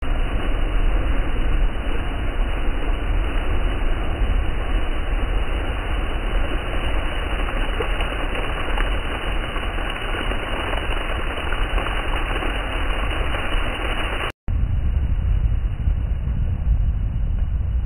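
Heavy surf breaking against a rocky seawall: a steady rumbling roar with no single crash standing out. It cuts out for a split second about fourteen seconds in, then goes on a little duller.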